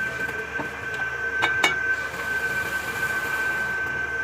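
A workshop machine running with a steady high whine, and two sharp metallic knocks in quick succession about a second and a half in.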